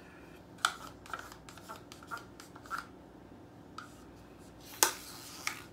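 A stir stick scraping and tapping against a small paint cup to get the last of the acrylic paint out: a series of short scrapes and clicks, the loudest about five seconds in.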